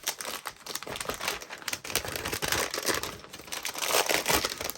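Plastic wrapping on a box of microwave popcorn crinkling and crackling as it is handled and pulled open, getting louder past the middle.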